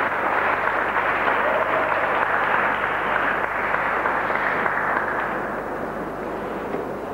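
Ice-dance programme music over an arena's loudspeakers, picked up by a camcorder's microphone as a dense, washed-out noise. It drops a little in level about five seconds in, as the programme ends.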